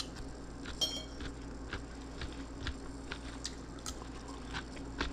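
Metal fork clinking and tapping against a dinner plate as food is picked up, a scatter of light clicks with one ringing clink about a second in.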